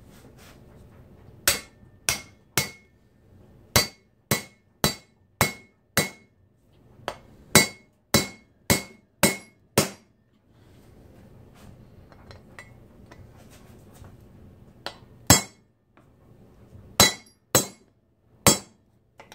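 A hammer striking an aluminium cup driver to drive a tapered pin into a 6-71 supercharger rotor, with sharp, ringing metallic blows. There are three blows, then a steady run of about a dozen at roughly two a second, and after a pause of several seconds, a few more.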